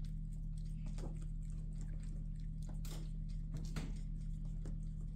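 A cat licking a lickable puree treat from a squeeze tube: a run of small, irregular wet licking clicks over a steady low hum.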